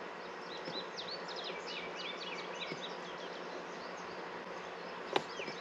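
Outdoor summer ambience of insects buzzing, with many short, repeated chirping notes over it, and a single sharp click about five seconds in.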